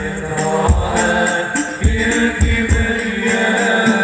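Live sholawat music from a hadroh ensemble over a loud sound system: a deep drum beats every half second or so under a held melody line.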